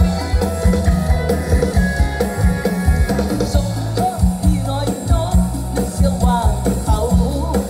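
Live band music over a loud PA: a singer over a drum kit's steady beat and electric guitar.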